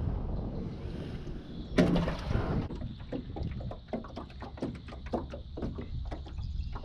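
Wind rumble on the microphone, a single loud thump about two seconds in, then irregular small clicks and ticks of hands handling a hook and a small bream bait in an aluminum jon boat.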